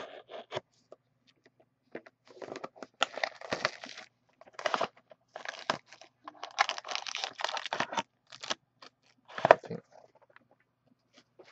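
An Upper Deck Ultimate hockey card box being slit and torn open by hand: cardboard tearing and plastic packaging crinkling in a run of irregular rasping bursts, the loudest near the end.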